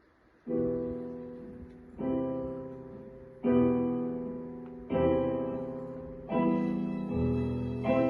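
Slow piano introduction: sustained chords struck about every second and a half, each left to ring and fade before the next.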